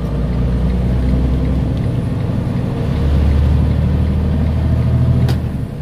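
Semi truck's diesel engine and road noise inside the cab while driving, a steady low drone that gets louder about three seconds in. A single sharp click near the end.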